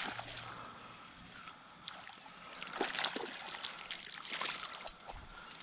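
Water splashing and sloshing in a creek as a small hooked spotted bass thrashes at the surface while being reeled in, with the loudest splashes about halfway through and again a little later.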